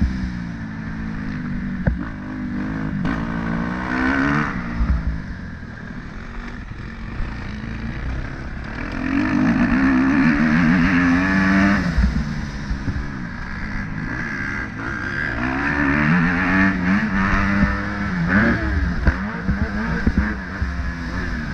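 Motorcycle engine revving up and easing off several times as it accelerates and slows, with wind rumbling on the microphone.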